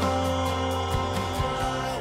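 Background music: an instrumental stretch of a song with held chords and no singing, slowly getting quieter.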